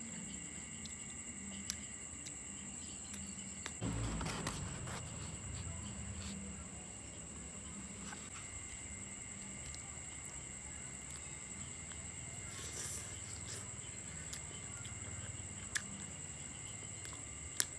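Insects chirring steadily at a high, even pitch, with faint chewing and a few small clicks; a louder bump about four seconds in.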